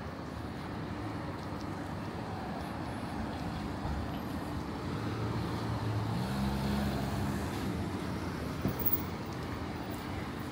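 Road traffic going by, with one vehicle's engine growing louder around the middle and then fading.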